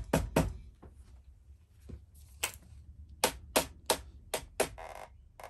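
Rubber mallet tapping the end of a muzzleloading rifle barrel to seat it into its wooden stock: a series of about ten sharp knocks, some in quick pairs.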